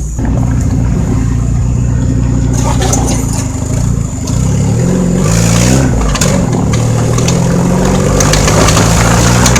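Fiat Palio's engine running steadily, its pitch dipping and then rising again a little after the middle, with a few scattered knocks.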